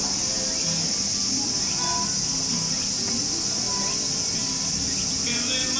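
A steady, high-pitched insect drone, with soft background music underneath.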